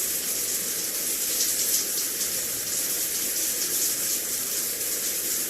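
Shower running, water falling in a steady even spray.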